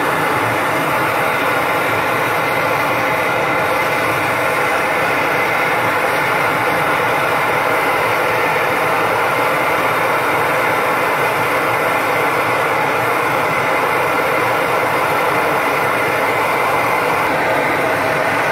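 MSR XGK EX pressurised liquid-fuel stove burning at full output with its standard burner cap and no noise damper: a steady, noisy roar of the burner flame that holds even throughout.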